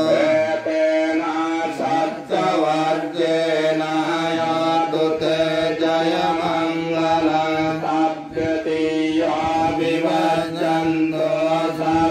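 Theravada Buddhist monks chanting Pali verses in a steady, melodic recitation, amplified through a microphone.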